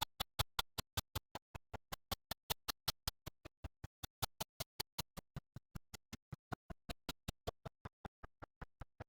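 A steady run of sharp, evenly spaced ticks, about six a second, with dead silence between them.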